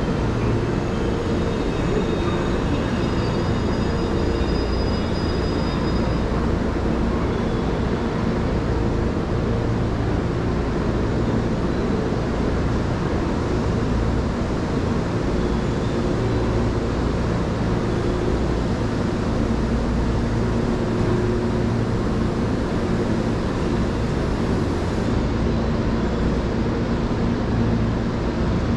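Steady rumble and hum of a train standing at a station platform with its doors open, with a few faint high tones in the first few seconds.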